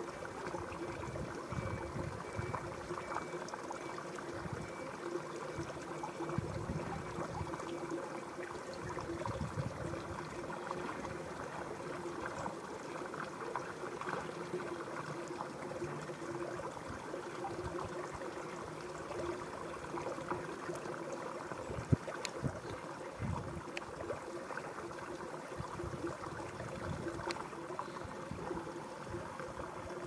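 Shallow river water flowing and trickling steadily, with a faint low hum underneath and one sharp click about two-thirds of the way in.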